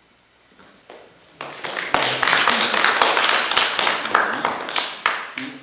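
A small audience applauding in a room. The clapping starts about a second and a half in, stays loud and dense, and tails off near the end.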